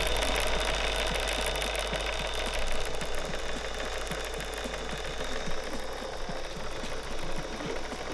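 Sanki Kogyo Escon Mini chain-driven belt conveyor running: a steady motor whine over fast, irregular light ticking.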